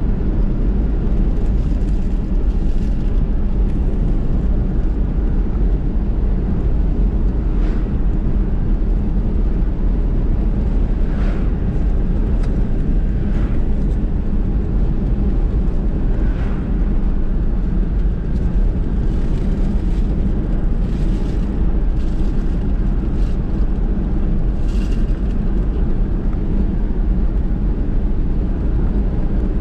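Car driving on a road: a steady low rumble of road and engine noise, with a few faint ticks.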